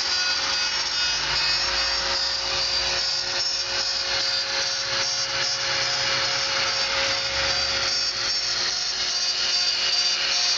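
CNC router spindle running steadily with a high whine while its bit cuts into wood, a rough cutting noise over it.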